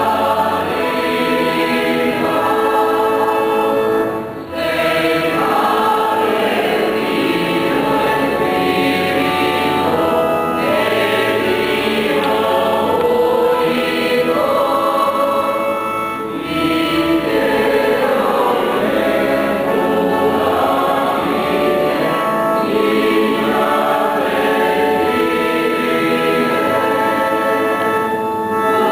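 Choir singing a hymn in long, held phrases, with a few short pauses between phrases.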